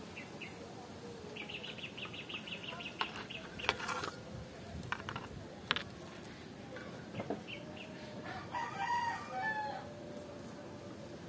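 A rooster crows once, for about a second, roughly two-thirds of the way through. Under it is the rustle and a few sharp crackles of young palm leaf strips being folded and woven by hand. A quick run of high chirps comes in the first few seconds.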